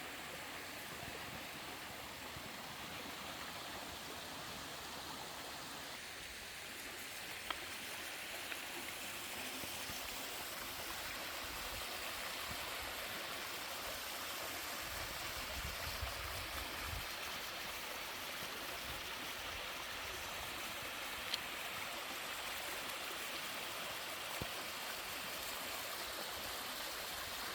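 Mountain-stream waterfall, water rushing and splashing steadily over rocks, with a few faint ticks now and then.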